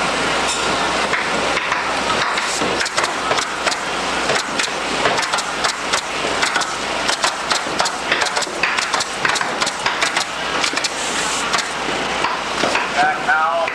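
Pneumatic roofing nailer firing into asphalt shingles: rapid, irregular sharp clacks, one after another, over a steady background hiss.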